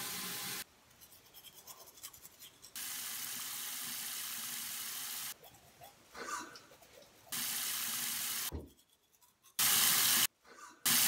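Bathroom faucet running into a sink, in several steady stretches that start and stop abruptly, alternating with quieter passages of toothbrush scrubbing. The water is loudest in a short stretch near the end.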